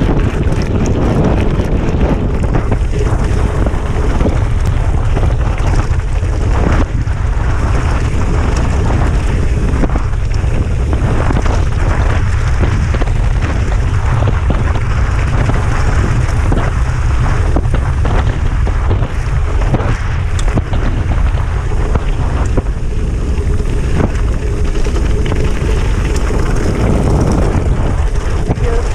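Heavy wind buffeting on the microphone during a gravel-bike descent, over the steady crunch of tyres on loose gravel and frequent small rattles and clicks as the bike bounces over stones.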